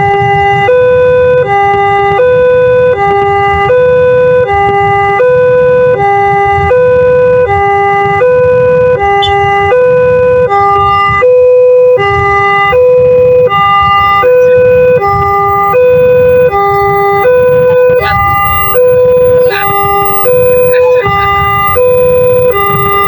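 Railway level-crossing warning siren of the Multec type, sounding a fast two-tone alternation: a high note and a low note swap about every three-quarters of a second, steady and loud. A low rumble runs underneath.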